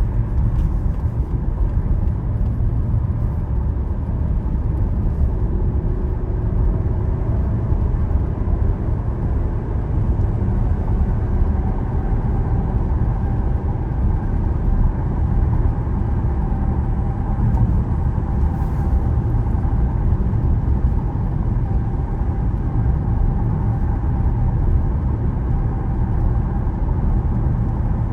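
Steady road and tyre noise with engine hum inside a car cruising on an expressway, a deep even rumble with a faint steady tone above it.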